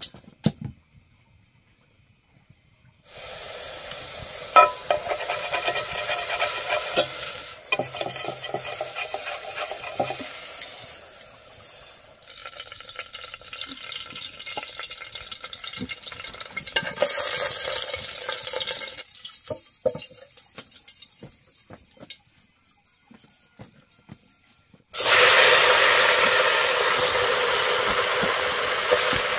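Oil heating in a pot over a wood fire, crackling and sizzling in fits. About 25 seconds in, leafy greens are dropped into the hot oil and a loud, steady sizzle starts at once.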